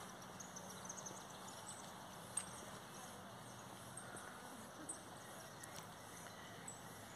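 Quiet outdoor background with a few faint, scattered ticks.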